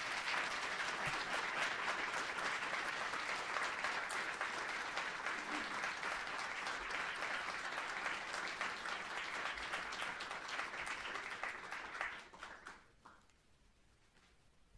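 Audience applause in a lecture hall: many people clapping steadily, dying away about twelve seconds in, then quiet room tone.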